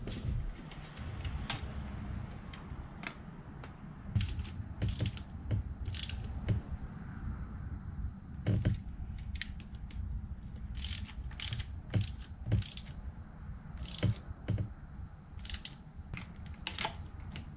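Hand ratchet clicking in short runs as the intake manifold bolts are run down snug, ahead of final torquing with a torque wrench.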